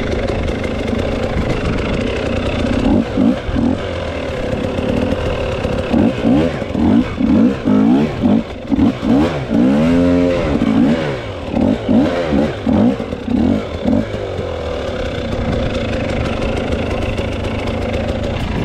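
Dirt bike engine being ridden, running steadily at first, then through the middle giving a string of short throttle blips, each rising and falling in pitch, with a longer rev about ten seconds in, before settling back to a steady run.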